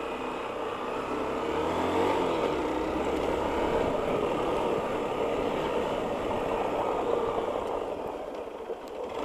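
A road vehicle going by, its engine and tyre noise growing over the first couple of seconds, holding steady, then fading near the end.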